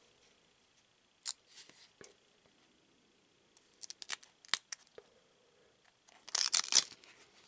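A stack of glossy trading cards handled by hand, the cards sticking together and being peeled and slid apart. There are a few short scrapes and snaps, a quick cluster of them in the middle, and the loudest, longer rustle of cards scraping past each other near the end.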